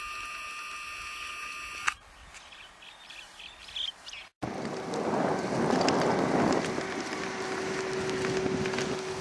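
Outdoor field recordings joined at cuts. A steady high buzz stops about two seconds in, and a few faint bird chirps follow. After a brief dropout, wind rushes over the microphone, with a steady low hum underneath.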